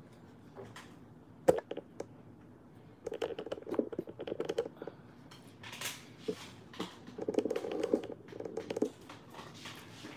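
A single sharp click, then two runs of rapid tapping and clicking, each lasting about two seconds.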